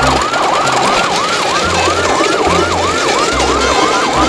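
Electronic siren yelping in fast rising-and-falling sweeps, about three a second, over short low bass notes.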